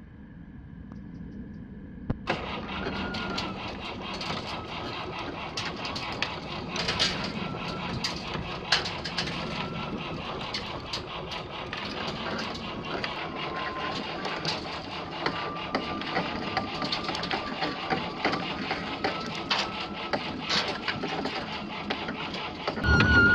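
M29C Weasel tracked carrier's Studebaker six-cylinder engine running as the vehicle crawls down off a trailer, its steel tracks clattering and knocking over the trailer deck and ramps, with a wavering squeal. The noise comes up sharply about two seconds in.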